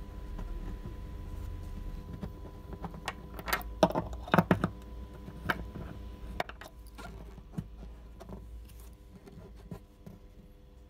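Light clicks and taps of small hard parts being handled as an acoustic guitar bridge and its bridge pins are set in place on the guitar top to check alignment. A quick cluster of several taps comes about four seconds in, then the taps thin out. A faint steady hum runs underneath.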